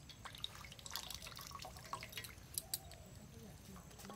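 Water dripping and trickling into a steel bowl as wet mushrooms are squeezed out by hand, with scattered small splashes and clicks.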